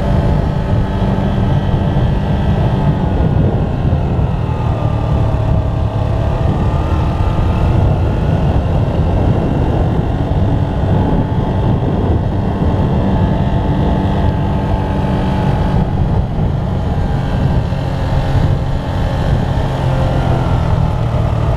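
Motorbike engine running steadily at cruising speed, heard from on the bike, with wind rumble on the microphone. Its pitch dips and rises a little a few times, as with small throttle changes.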